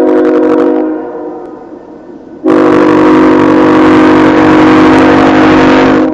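Locomotive air horn sounding a chord of several tones: a short blast, then about two and a half seconds in a long blast lasting over three seconds. The short-then-long pattern is the close of a grade-crossing horn signal.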